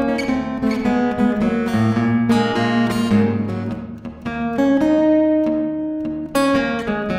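Acoustic blues guitar playing an instrumental passage: a quick run of picked notes and strums, a held note in the middle, then a sharp new strum near the end.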